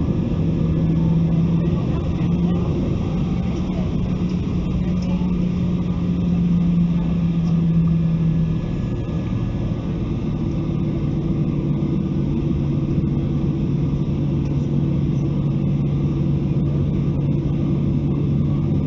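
Boeing 737-800's CFM56-7B turbofan engines running at low taxi power, heard inside the cabin over the wing: a steady rumble with a hum that steps down slightly in pitch about eight seconds in.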